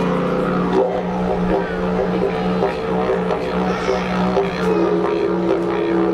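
Two didgeridoos played together: a steady drone with overtones, pulsing in rhythm, and a higher held tone joining near the end.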